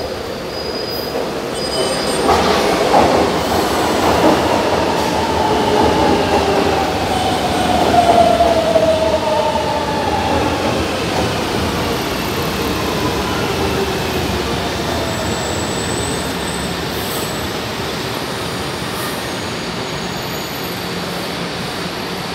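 São Paulo Metro Line 1 train pulling into the platform and braking: a whine falls steadily in pitch for about ten seconds as it slows. It then stands with a steady, slowly fading hum.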